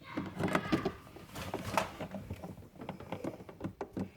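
Irregular clicks, knocks and rustling of plastic freezer parts being handled and fitted back into place.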